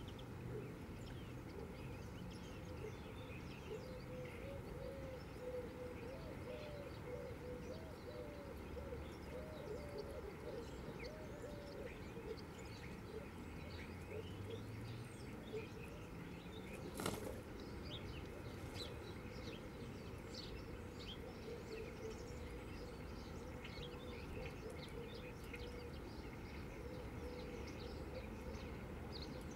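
Faint chirping of small birds, many short calls scattered throughout, over a low steady outdoor rumble, with a single sharp click a little past halfway.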